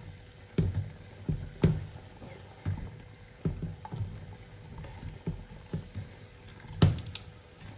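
Wooden spatula pressing and stirring dry bihon rice-noodle blocks into bubbling sauce in a pot, with irregular soft knocks against the pot, one of the loudest near the end.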